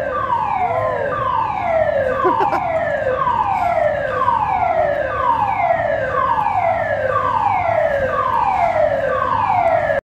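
Supermarket emergency evacuation alarm sounding: a loud electronic tone that falls in pitch, repeated about once a second.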